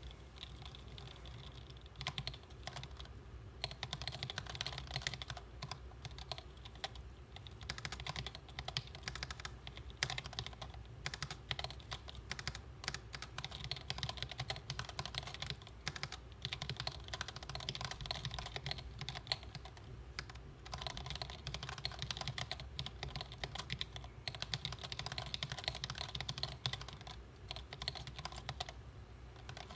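Typing on a Planck ortholinear mechanical keyboard with Gateron Yellow linear switches: a fast, uneven stream of keystroke clicks broken by short pauses, over a faint low hum.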